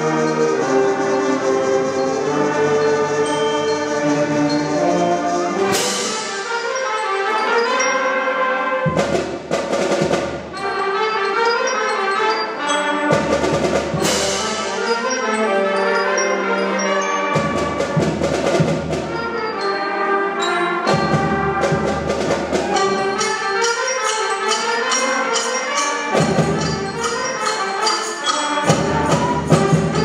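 A school concert band of woodwinds and brass playing a piece: held chords at first, then from about six seconds in, percussion hits with low drum strokes come every few seconds under the band, with short repeated notes toward the end.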